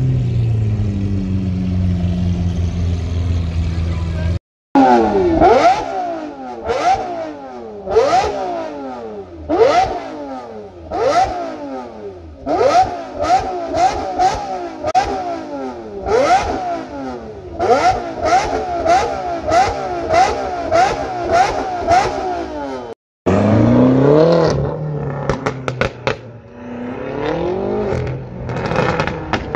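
Lamborghini V12 engines: one drives past with its pitch falling, then a Murciélago is revved hard in place over and over, each blip rising sharply and dropping back, sometimes in quick runs of several. Near the end another car revs and accelerates with a run of sharp cracks.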